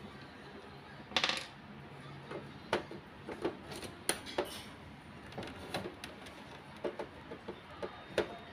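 Screwdriver and screws clicking and clinking against the metal frame and plastic housing of a Brother HL-2130 laser printer as the fuser's side screws are undone: scattered sharp clicks, with a short metallic rattle about a second in.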